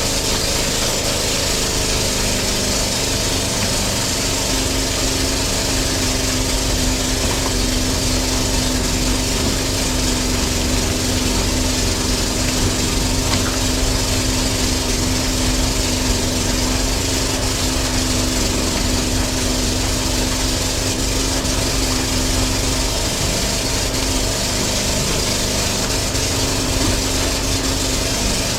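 Chaff cutter driven by a small generator engine, running steadily and loudly without a break.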